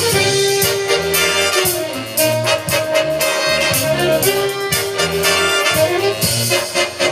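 A jazz big band playing live, its brass and saxophone sections holding long notes over drums and cymbals.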